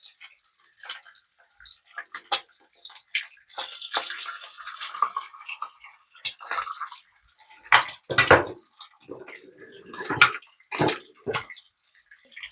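Household handling sounds: a series of sharp clinks and knocks, with a short stretch of water running or splashing about four seconds in.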